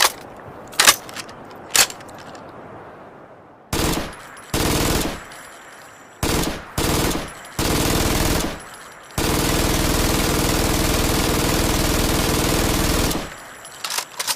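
MG-42 machine gun firing: three single shots, then several short bursts, then one long unbroken burst of about four seconds, followed by a few faint clicks near the end.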